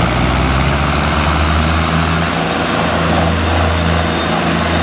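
Two diesel tractors, a Mahindra Arjun 605 and a Swaraj 855, running hard under full load as they pull against each other in a tug-of-war. Their engines make a steady, loud low drone.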